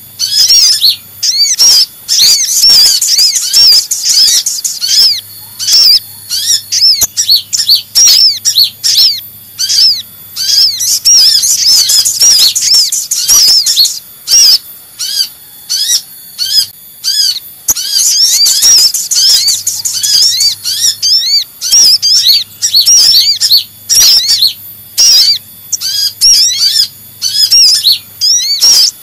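Sunbird lure recording: rapid, high-pitched chirping and twittering, the agitated ('ribut') calls of the kolibri ninja (Van Hasselt's sunbird) combined with sogon (sogok ontong) calls. The chirps come in dense runs broken by short gaps.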